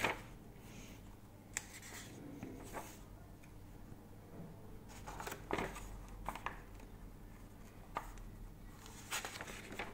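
Faint, scattered rustles and soft clicks of a handheld phone being moved and gripped while filming, over a low steady hum.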